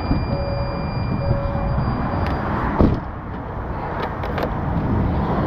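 Steady rumble of motorway traffic and wind. Two short beeps sound early on, a thin high whine runs for about the first two seconds, and a single sharp thump, the loudest moment, comes near three seconds in.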